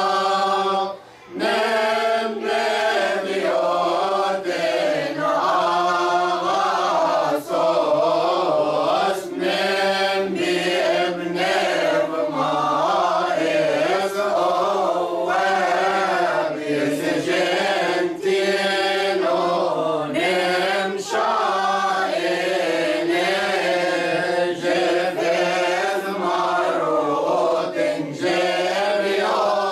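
Mixed choir of men and women chanting a Coptic church hymn together, with long held, wavering notes and a short break about a second in.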